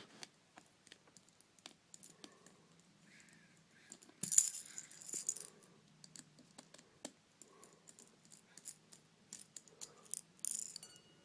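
Small light clicks and rattles of a tiny hex driver working the micro screws out of an HTC Droid Incredible 2's housing, with a brighter, louder metallic rattle about four seconds in and another shorter one near the end.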